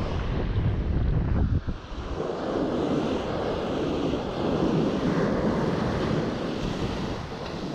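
Ocean surf washing onto the beach, with wind buffeting the microphone: a heavy low rumble for the first second or two, then easing to a steady rush of breaking waves.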